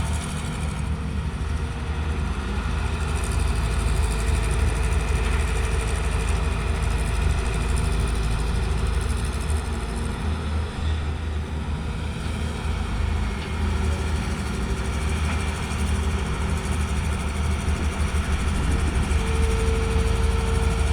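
Excavator's diesel engine running steadily with a heavy low rumble. A steady whine comes in near the end.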